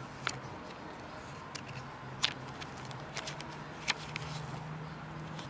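Pages of a small paper instruction booklet being handled and turned, giving a few short crisp clicks and rustles, over a faint steady low hum.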